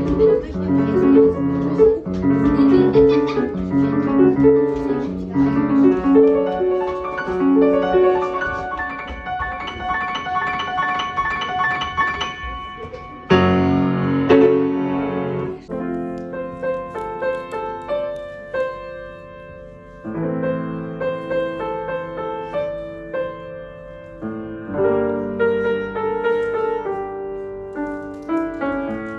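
Background piano music: a melody over repeated chords, with a louder chord coming in about 13 seconds in.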